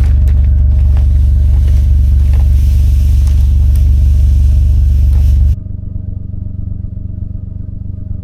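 Vehicle engine running with a steady low rumble and some rattling. About five and a half seconds in, the sound drops suddenly to a quieter, duller engine rumble.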